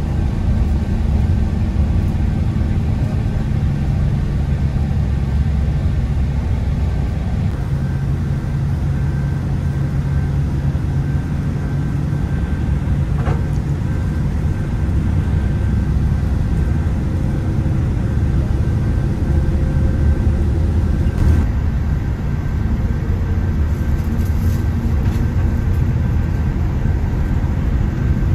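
Bus engine running: a steady, loud low drone with vehicle noise.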